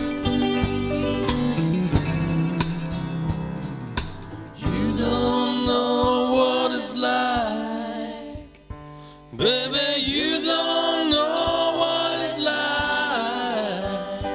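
Band music: a steady drum beat under sustained guitar and keyboard notes, then wordless singing comes in about five seconds in. The music drops away briefly around the middle and picks up again.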